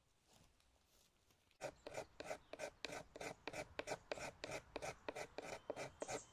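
Bushcraft knife blade shaving thin curls off a wooden stick, as in carving a feather stick. A quick, even run of short scraping strokes, about four a second, starts about a second and a half in.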